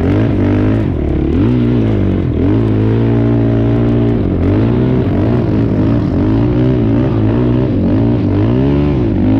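ATV engine running under changing throttle, its pitch rising and falling again and again, held steady for about a second and a half near the middle.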